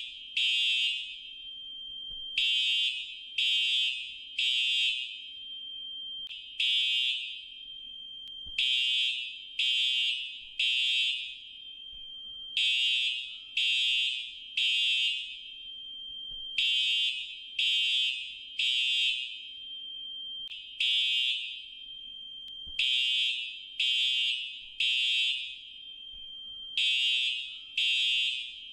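Fire alarm beeping in a high-pitched tone, in groups of three beeps, one group about every four seconds: the temporal-three evacuation signal. A fainter steady tone holds between the groups, and twice a single beep sounds in place of a group.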